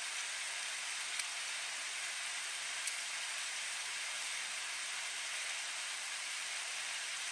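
Steady sizzling hiss from a pot of food cooking on a homemade tin-can wood stove, with two light clicks about one and three seconds in.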